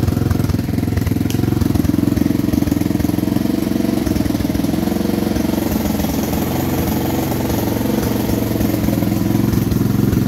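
Bashan ATV engine idling steadily, with its radiator cooling fan running.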